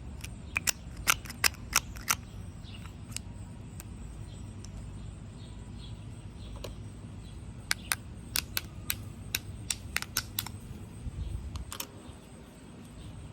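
Sharp plastic clicks and taps of lip gloss tubes and caps being handled. There is a cluster of several clicks in the first two seconds, then a run of about a dozen between roughly eight and ten and a half seconds in.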